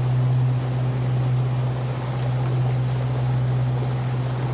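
A sailboat's inboard engine running steadily under way, a constant low hum, with wind and water noise around it.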